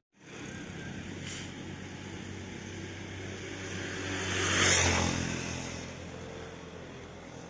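A motor vehicle passing on the road: engine hum and tyre noise grow louder to a peak just before five seconds in, then fade away.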